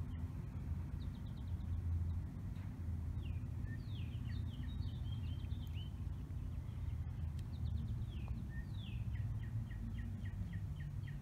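Songbirds chirping in short, falling notes, with a quick run of evenly spaced chirps near the end, over a steady low background rumble.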